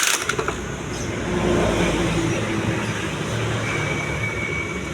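Kawasaki Ninja RR 150 two-stroke single-cylinder engine running, with the revs rising a little about a second and a half in.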